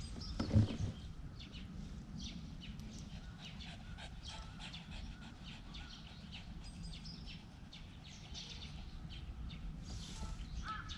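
Small birds chirping on and off, short high calls scattered throughout, over a low steady rumble. A low thump about half a second in, and a crow starts cawing repeatedly near the end.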